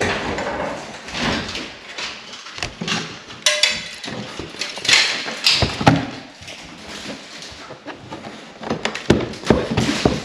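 Wooden attic hatch panel being pushed up and shifted in its ceiling opening: irregular knocks and scraping of wood on wood, mixed with steps on a wooden ladder.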